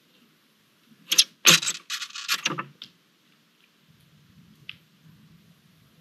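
Barn owl's talons scrabbling and scraping on the sheet-metal roof of a wooden nest box: a scratchy clatter with a couple of knocks, lasting about a second and a half, then a faint click near the end.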